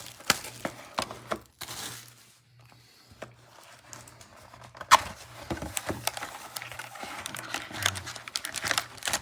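Trading-card pack wrappers crinkling and crackling as they are handled, with a quieter lull partway through and a sharp snap about five seconds in.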